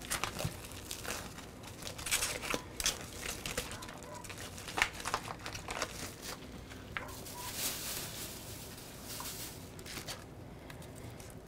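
Plastic food packaging crinkling and rustling in gloved hands, with irregular sharp crackles as the package of ground chicken is opened and emptied.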